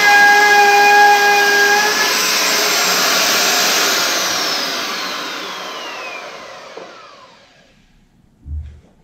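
Handheld electric router with a top-bearing bit running loud, cutting the edge of a plywood frame. About four seconds in it is switched off, and its whine falls steadily in pitch as the motor spins down over three or four seconds. A low thump comes near the end.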